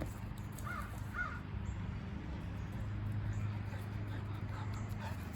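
Two faint short bird calls about a second in, over a steady low outdoor hum.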